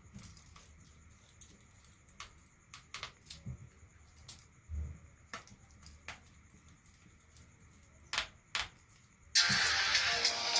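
Sparse, irregular light clicks and taps over a quiet background, about a dozen of them. Then guitar music starts suddenly and loudly near the end.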